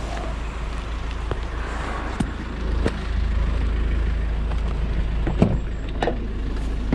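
Cutters snipping through electrical cords: four sharp snaps, two about two and three seconds in and two more near the end, over a steady low rumble.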